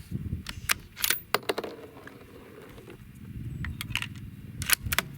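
A series of sharp clicks and light rattles from handling a rifle and its scope, in two clusters about three seconds apart.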